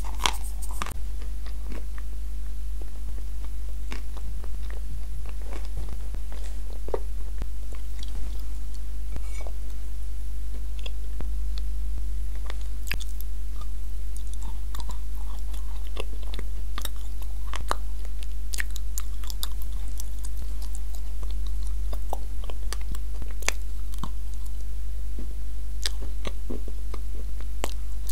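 Close-miked crunching and chewing of dry pieces of edible clay pressed into cookie shapes, in scattered bites, over a steady low electrical hum.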